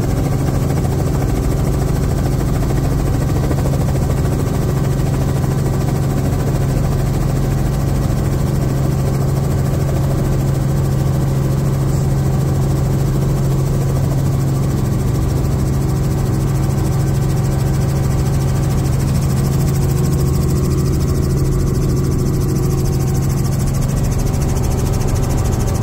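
Robinson R44 helicopter heard from inside the cabin, its piston engine and rotors making a steady, loud low drone as it lifts off and climbs.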